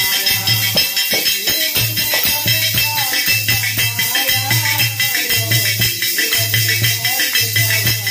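Hindu devotional music for the goddess (a Mata Rani bhajan), with a singing voice over a steady low beat about once a second and a busy high rattle of percussion.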